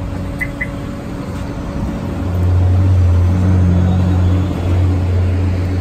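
A motor vehicle engine idling with a steady low hum, growing louder about two seconds in. Two quick high chirps sound near the start.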